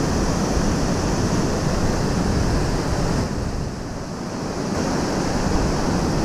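Small waterfall and shallow stream rushing over rocks: a steady wash of water noise, dipping a little in the middle.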